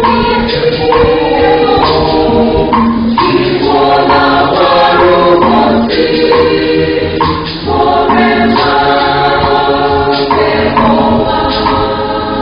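A church choir singing together, loud and sustained, with a short dip in level about seven and a half seconds in.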